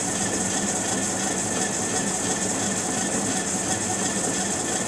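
Cue lathe running steadily, spinning a cue butt as Irish linen thread winds onto it, with a steady high hiss over the motor's hum.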